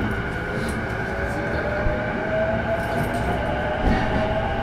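Running sound inside a JR East E233-7000 series motor car (MoHa E233-7207): the Mitsubishi IGBT-VVVF traction drive whines steadily upward in pitch as the train gathers speed. Over it runs the constant loud noise of the car's air conditioning, with a couple of knocks.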